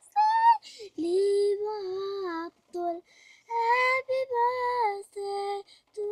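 A child singing a slow melody of long held notes with short breaks between them, after a few short rising notes at the start.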